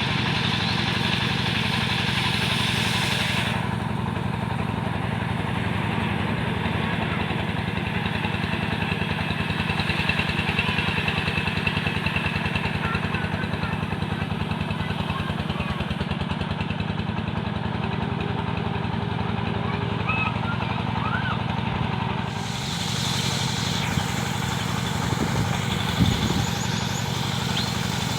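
Engine of a wood-sawing machine running steadily at constant speed, a low even hum. A higher hiss over it drops away about three and a half seconds in and comes back near the end.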